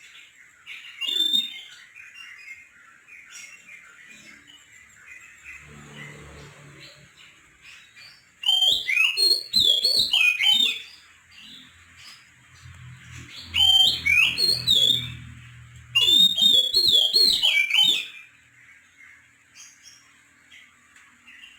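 Oriental magpie-robin (kacer poci) singing in loud bouts of fast, varied whistled phrases: a short phrase, then three longer bursts of song.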